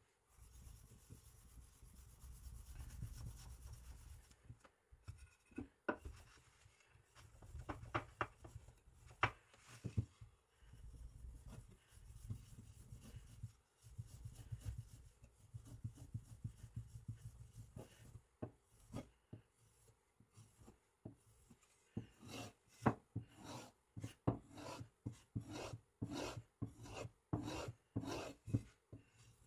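Kitchen knife blade stroked along a leather strop charged with green polishing compound, to bring the blade to a mirror polish. Slow rubbing strokes at first, then about two-thirds of the way through a run of quicker, sharper strokes, a few a second.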